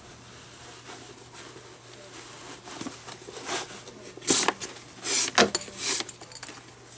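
Green leather lace being pulled through the lace holes of a Rawlings Pro Preferred baseball glove's finger tips during relacing: a few short rasping pulls of lace on leather, mostly in the second half.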